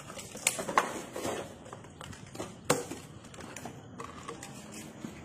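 Plastic water bottles clattering and crinkling as they are handled, with scattered sharp knocks, the loudest about two and a half seconds in.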